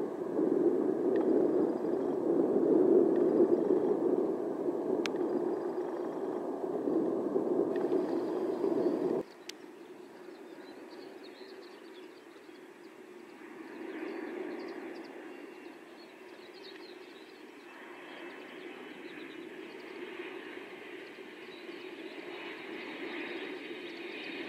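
Boeing 747's four jet engines running steadily at climb power as it departs, cutting off suddenly about nine seconds in. Then a quieter, distant Airbus A300 jet on approach with its gear down, its faint engine whine slowly growing louder toward the end.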